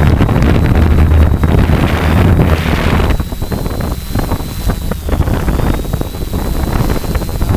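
Hovering 450-size quadcopter heard from its own onboard camera: prop wash buffeting the microphone in a heavy low rush, with a thin steady high whine from the craft. The buffeting eases about three seconds in and then comes in gusts.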